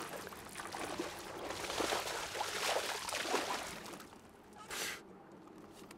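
Hooked bass thrashing and splashing at the water's surface as it is fought to the boat. The splashing is loudest in the middle and ends with a brief splash near the end as the fish jumps.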